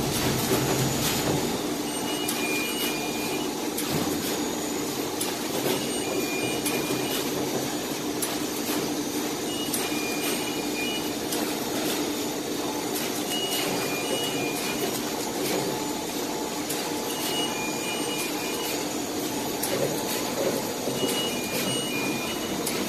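SMT pick-and-place machine and its scrap tape cutter running: a steady mechanical hum with irregular quick clicks. A short electronic beep at two pitches sounds every three to four seconds.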